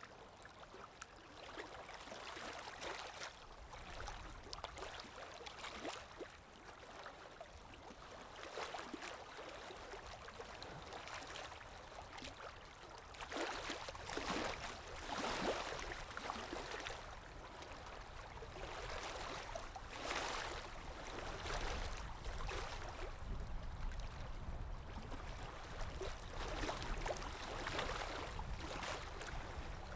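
Water sound effect of flowing, gurgling water, rising and falling in irregular swells over a steady low rumble.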